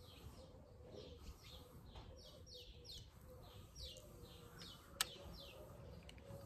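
Faint bird chirping: short high notes that fall in pitch, repeated about two or three times a second. A single sharp click sounds about five seconds in.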